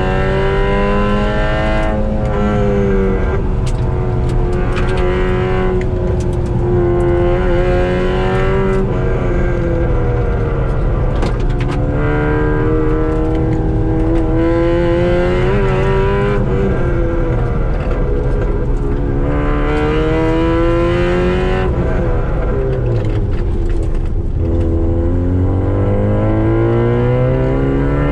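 Car engine heard from inside the cabin while lapping a circuit, its note rising under acceleration and dropping repeatedly at each lift or gear change.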